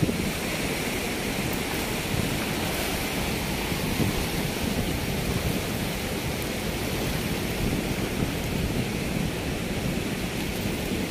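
Ocean surf washing steadily up a sandy beach, with wind buffeting the microphone.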